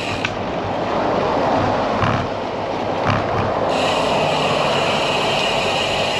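Steady wind and road noise from riding a road bike on a paved path, with traffic on the highway alongside. A little under four seconds in, a higher steady hiss starts suddenly.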